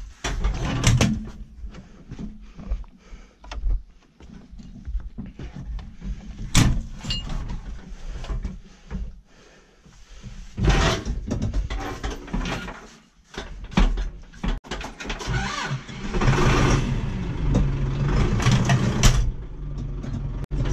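Clicks and knocks from the controls of a Zetor tractor cab, then about ten seconds in the tractor's diesel engine is started and settles into a steady run for the last few seconds.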